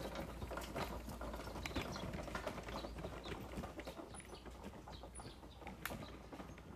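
Loaded fishing trolleys rattling and clicking as they are pushed along a grass path, with a few faint bird chirps.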